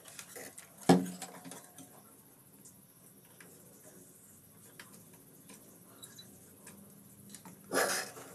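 Small clicks and knocks of tools working on a CRT TV circuit board while swollen capacitors are desoldered. There is a sharp knock about a second in, scattered light ticks, and a brief scraping clatter near the end.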